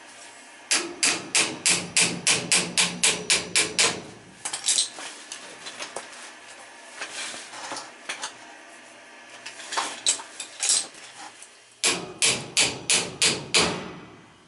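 Repeated hammer taps driving an adjustable pulley along a furnace blower shaft to line it up with the belt. They come in two fast runs of about four sharp taps a second, with scattered lighter taps between.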